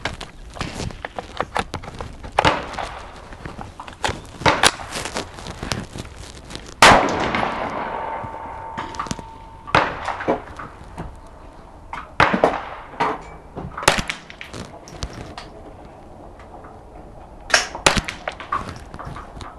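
Gunshots fired in an irregular series, a few loud ones among quieter cracks; the loudest, about seven seconds in, is followed by a long ringing tail.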